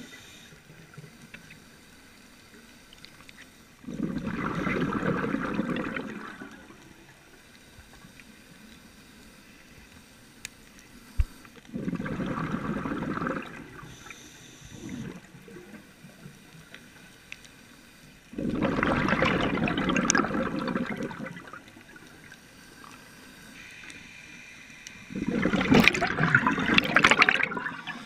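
Scuba diver's exhaled breath bubbling out of the regulator, heard underwater: four gurgling bursts of one and a half to three seconds each, several seconds apart, with quieter pauses for inhaling between.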